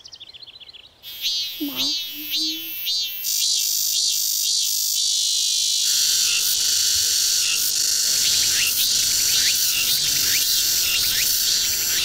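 Several cicada songs layered together in a chorus. A rhythmic high chirping song is joined about three seconds in by a steady high buzz, and about six seconds in by another song of repeated swooping calls.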